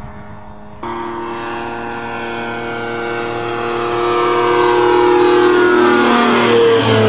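Light airplane's engine running. It jumps louder about a second in, keeps growing louder, and near the end its pitch drops as the plane passes.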